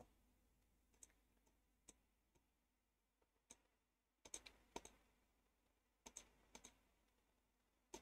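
Near silence broken by faint, scattered clicks of a computer mouse and keyboard, single ones at first, then a quick cluster about four to five seconds in and a few more pairs later.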